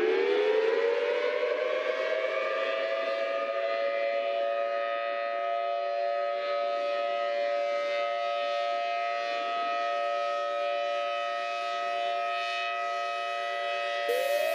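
Civil defense siren finishing its wind-up and then holding a steady wail of several pitches at once. Shortly before the end a second siren tone starts gliding upward.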